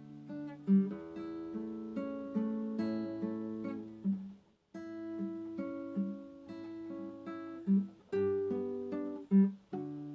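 Acoustic guitar playing a slow, calm piece of plucked notes and chords, broken by a short silence a little after four seconds in.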